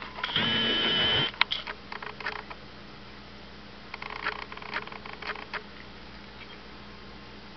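A cat meows once, loud and about a second long, near the start. Then come soft clicks and smacking of cats eating wet food and lapping water from their bowls, over a faint steady hum.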